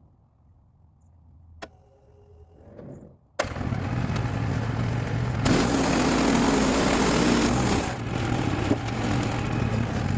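A sawmill's small gas engine running, coming in suddenly a little over three seconds in and growing louder for a couple of seconds in the middle.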